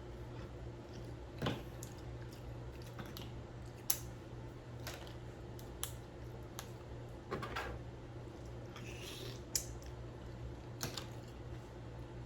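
Close-up eating sounds of a seafood boil: sharp cracks and clicks of shells being broken and picked apart by hand, with some wet squishing, scattered about once a second over a low steady hum.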